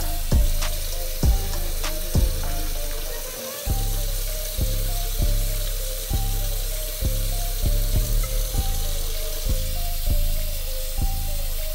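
Background music with a steady beat and bass line, over the steady hiss of a thin gravy sizzling and simmering in a stainless skillet.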